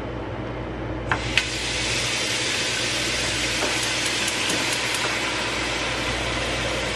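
Wall-mounted pot-filler faucet turned on with a couple of clicks about a second in, then water pouring steadily into a metal pot on the stove, filling it.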